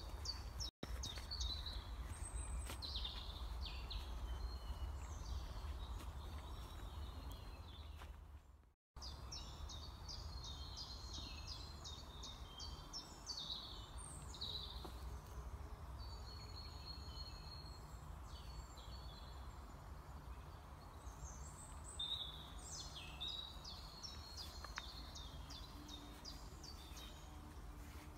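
Songbirds singing in garden shrubbery: many high chirps and rapid trills from more than one bird, over a steady low rumble.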